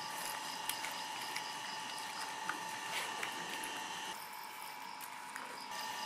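Gloved hands squelching and patting wet clay around a paper-wrapped chicken, with faint wet clicks, over a steady background hum with a high whine.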